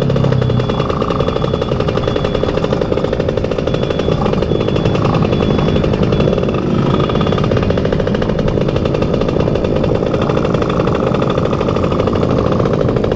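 Motorcycle engine running steadily with a rapid, even pulsing exhaust note.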